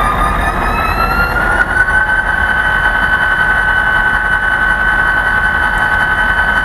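HO scale SD40-2 model's onboard sound system playing a turbocharged EMD 16-645 diesel prime mover with non-silenced exhaust, coming up to idle at the end of its startup sequence. A low engine rumble runs under a high whine that rises in pitch for about the first two seconds, then holds steady.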